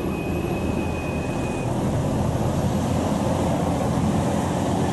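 A bus's engine running with road noise, steady throughout, with no telolet horn sounding. A thin, steady high tone is heard faintly over it for about the first second and a half.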